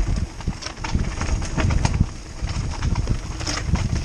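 Mountain bike clattering and rattling down a rocky trail, with irregular knocks as the tyres hit stones, over a steady low rumble of wind on the helmet camera's microphone.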